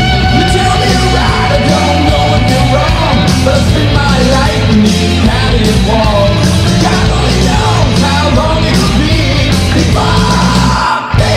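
Progressive power metal band playing at full volume, with singing over the band. There is a short break in the bass and drums just before the end.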